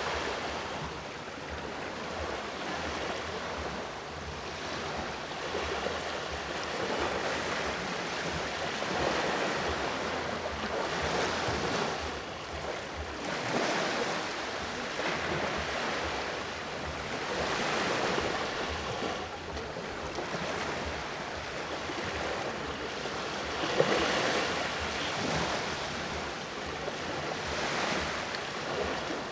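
Ocean waves washing onto the shore, the surf swelling and easing every few seconds, with some wind on the microphone.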